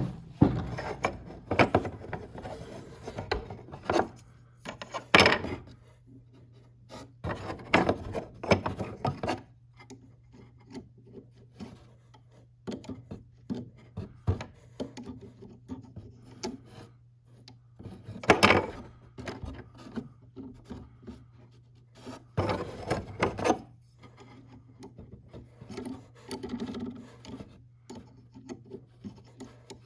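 Irregular scraping, rubbing and knocking as a clock pendulum and its parts are worked inside a wooden clock case, with several louder knocks. A faint steady low hum runs underneath.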